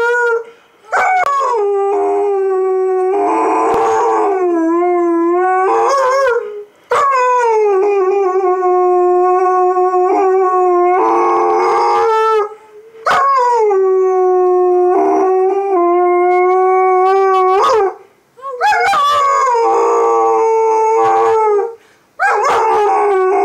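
Alaskan malamute howling: a run of long, sustained howls, each lasting several seconds with the pitch wavering partway through, separated by short breaks for breath.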